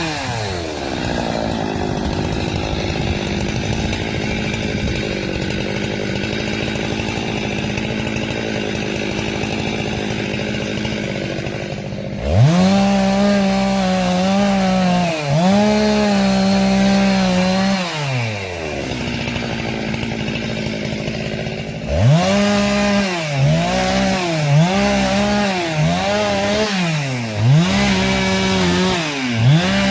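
Two-stroke chainsaw running at full throttle through wood for about twelve seconds. It then revs high and drops back toward idle, and near the end is blipped up and down repeatedly.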